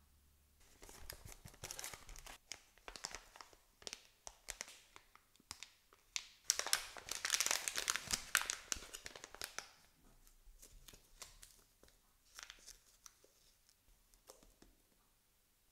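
Packaging rustled and crinkled by gloved hands: scattered rustles and clicks, then about three seconds of dense, louder crinkling and tearing as a silvery foil bag is handled and opened, then fainter handling sounds near the end.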